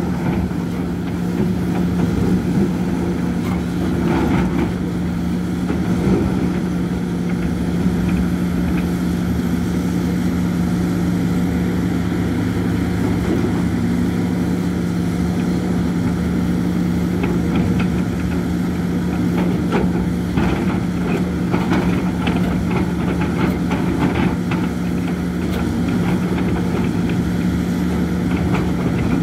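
Hidromek HMK 230LC H4 excavator's diesel engine running steadily as it digs, with scattered scrapes and clatter from the bucket working the soil.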